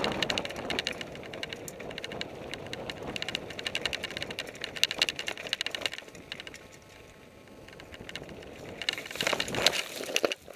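Fuji Thrill LTX mountain bike rolling fast down a dirt singletrack: tyres running over the dirt, with the chain and frame rattling over bumps. It quietens for a couple of seconds past the middle, then rattles loudly again near the end.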